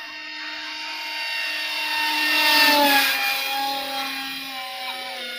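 Brushless electric motor and 6-inch propeller of a homemade foam RC plane whining as it flies past, growing louder to a peak about two and a half seconds in, its pitch dropping slightly as it passes, then fading.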